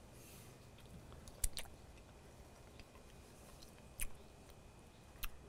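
A person quietly eating soft mashed potatoes, with faint chewing and three sharp clicks spread through it.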